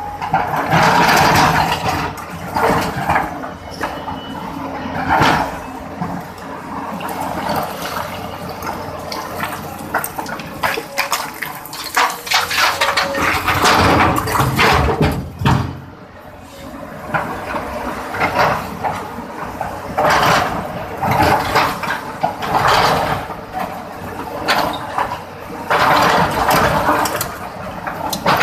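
Hydraulic excavator digging in rock and soil: the bucket scrapes and drags through the ground, with irregular surges of rushing, clattering earth and stones, over a steady engine hum.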